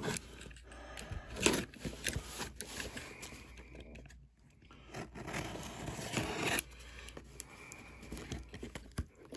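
A large cardboard shipping box being opened and unpacked by hand: irregular bursts of tearing and scraping of cardboard and packing, with a brief lull about four seconds in.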